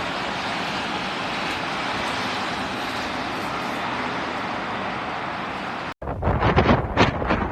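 A steady, even rushing noise for about six seconds. Then, after an abrupt cut, gusty blizzard wind buffets the microphone in uneven blasts.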